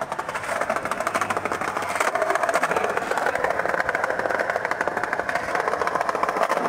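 Logo intro sound effect: a steady, loud buzzing made of rapid pulses.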